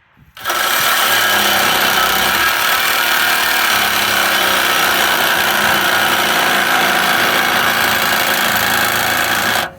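A power tool running steadily at full load for about nine seconds, starting and cutting off abruptly.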